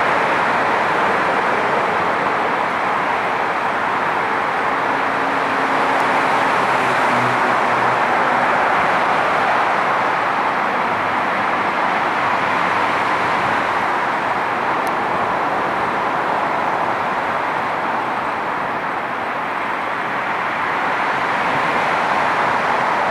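Four rear-mounted Soloviev D-30KU turbofans of an Ilyushin Il-62M airliner as it climbs away: a loud, steady rush of jet noise that dips slightly near the end.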